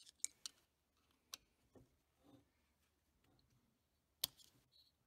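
Faint, sparse metallic clicks and ticks of a steel pick working inside the bore of a turbocharger's bearing housing, with the sharpest click a little over four seconds in.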